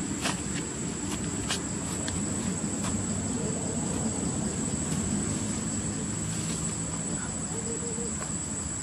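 Outdoor ambience: a steady low rumble under a continuous high-pitched insect drone, with a few faint clicks in the first three seconds.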